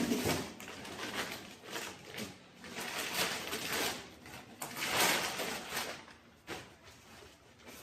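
Irregular scraping and rustling of hand work on parts, swelling and fading in waves, with a single sharp knock about six and a half seconds in.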